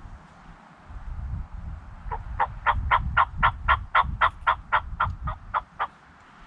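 Turkey yelping: a long run of about fifteen evenly spaced notes at roughly four a second, beginning about two seconds in, growing louder and then fading near the end. A low rumble sits underneath.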